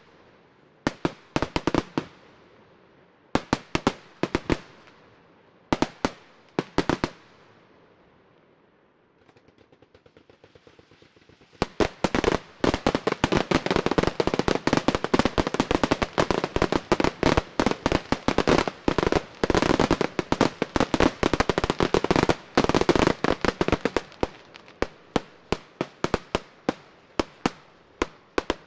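Fireworks display: short volleys of sharp bangs every couple of seconds, a brief lull with faint fast crackling, then about twelve seconds in a dense run of rapid bangs that lasts around twelve seconds before thinning to scattered single bangs.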